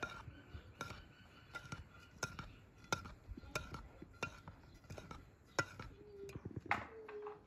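A metal spoon stirring chopped walnuts and sugar in an enamel bowl, knocking against the bowl in repeated light clicks about once or twice a second.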